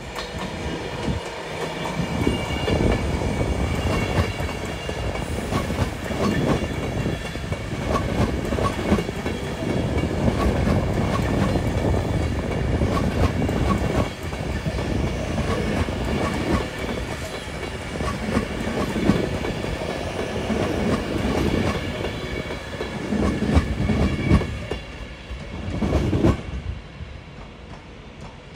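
A train passing close by, its wheels clattering rhythmically over rail joints, with a steady rumble and some high running tones; it cuts off suddenly about 26 seconds in.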